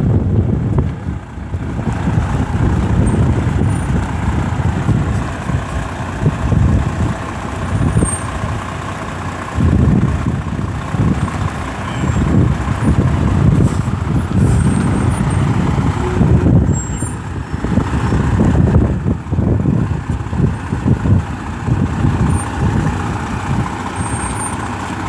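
Semi tractor-trailer's diesel engine running as the truck creeps forward at low speed: a loud, uneven low rumble with a faint steady whine above it.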